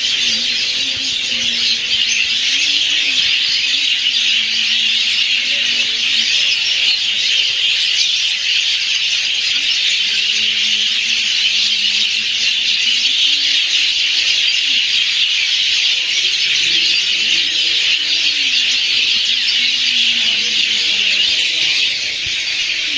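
Loud, steady insect chorus, a dense high shrill drone that keeps up without a break.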